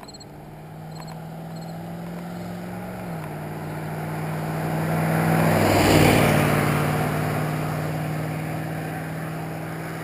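Pickup truck driving past: a steady engine drone grows louder, peaks about six seconds in as the truck goes by with its note dropping in pitch, then fades away. The engine note also steps down once about three seconds in.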